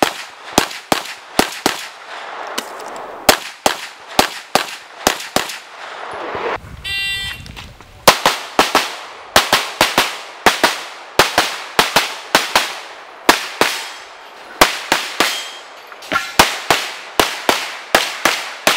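Strings of rapid handgun shots, many fired in quick pairs. About seven seconds in, the firing pauses and a shot timer beeps to start a new run, and rapid pistol fire resumes.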